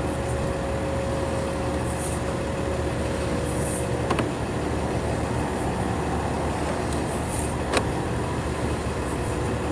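An engine running steadily, with two light clicks about four and eight seconds in.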